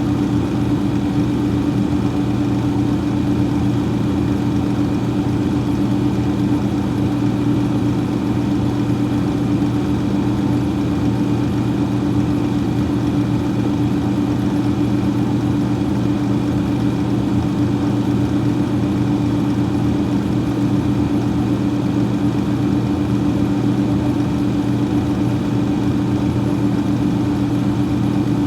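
Freezer fan running, a steady hum with a low droning tone over a soft whir.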